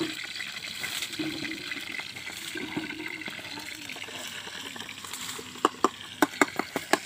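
Steady sound of water at the lake's edge, then a quick, irregular run of sharp clicks near the end.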